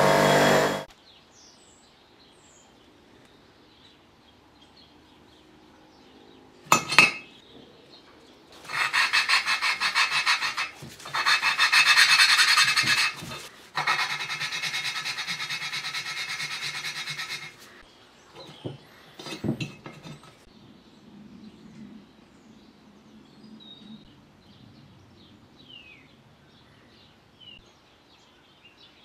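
A Clarke 6-inch bench grinder runs for under a second at the start, then cuts off. After a single knock, an engine valve is lapped into its seat in the cylinder head with a suction-cup lapping stick: a rasping rub in quick back-and-forth strokes, in three spells over about nine seconds, followed by a few clicks.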